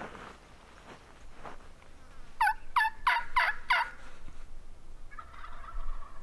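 Rio Grande wild turkey gobbler gobbling close by: one rapid rattle of about five sharply falling notes, a little over a second long, about two and a half seconds in.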